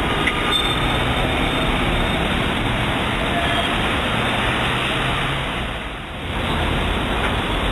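Steady road traffic noise, a continuous rush of passing cars, easing briefly about six seconds in.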